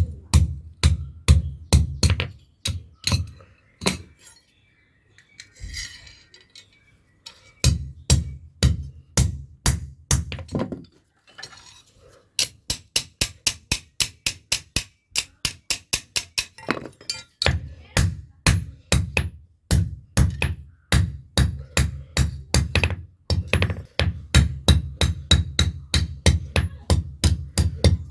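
Blacksmith's hammer striking a knife blade on an anvil in a steady rhythm of about three blows a second, with a short ring to each blow. The hammering pauses twice, once for a few seconds about four seconds in and again briefly near the middle.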